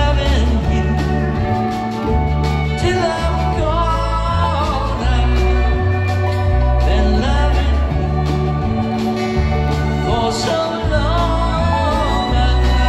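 A live roots-rock band playing a slow song: strummed acoustic guitar, upright bass notes and drums, with a sung melody carried over them.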